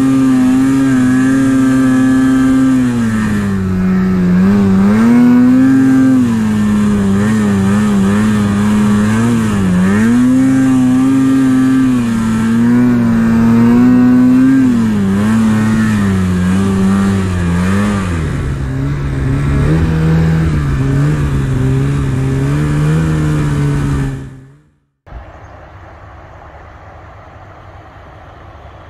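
Snowmobile engine running under throttle through deep powder, its pitch rising and falling again and again as the throttle is worked. It fades out about 24 seconds in, and a much quieter steady rushing noise follows.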